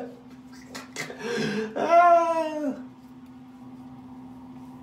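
A man's wordless vocal cry, a held note that drops off at its end, about two seconds in, after a couple of soft clicks; a steady low hum runs underneath.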